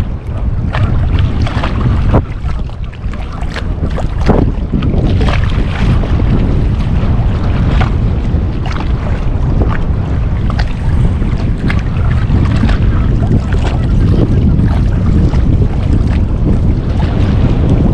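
Wind buffeting the microphone with a steady low rumble, and small choppy waves splashing and lapping close by.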